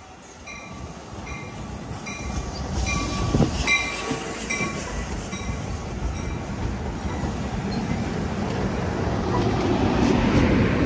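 Amtrak San Joaquin passenger train arriving cab car first, rumbling louder as its bilevel cars roll close past and slow. A short high ringing repeats about every three quarters of a second through the first half.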